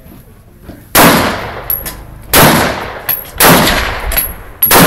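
A rifle firing four single shots, roughly a second apart. Each shot has a long echoing tail.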